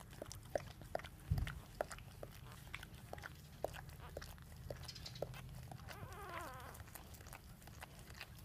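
Newborn puppies nursing against their mother dog: scattered wet clicks and smacks, a soft bump a little over a second in, and a thin wavering puppy whine about six seconds in.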